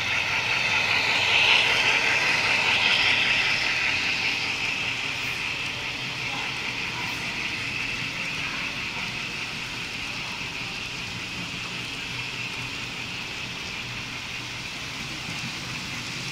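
HO scale model freight train running past behind Atlas Dash 8-40CW diesel locomotives: a steady whir of the motors and wheels rolling on the track. It is loudest in the first few seconds as the locomotives pass close, then settles to a steadier rolling sound as the freight cars go by.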